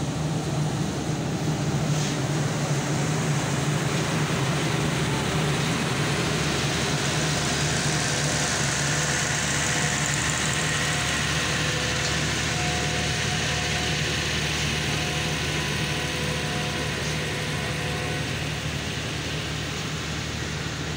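Diesel generator sets in a passenger train's power van running steadily: a constant low engine drone, with a rushing hiss that grows stronger around the middle.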